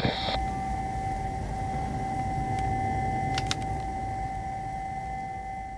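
Airbus A321-231 jet airliner's IAE V2500 turbofan engines heard from the ground as it climbs away: a low rumble with a steady whine, slowly fading.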